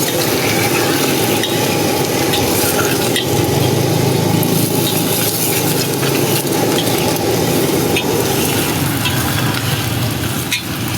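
Food sizzling as it fries in a hot pan, stirred and tossed with a metal spatula that clicks and scrapes against the pan again and again.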